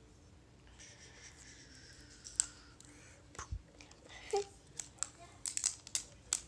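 Plastic wrapping on a toy surprise ball being picked and peeled open by hand: a faint hiss at first, then scattered crinkles and sharp clicks.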